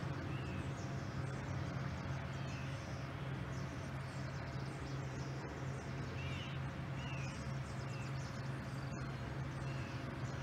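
Steady low drone of the idling jet engines of a VC-25A (Boeing 747) as it taxis, with small birds chirping briefly every second or two over it.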